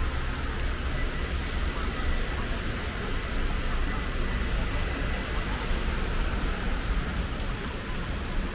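Heavy rain falling steadily, with a constant low rumble underneath.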